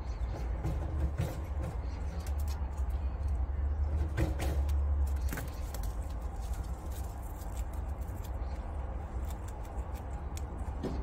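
Prairie dogs chewing and tearing fresh grass, heard as many small crisp clicks. Under them runs a low rumble from an animal's fur brushing right against the microphone, loudest about four to five seconds in.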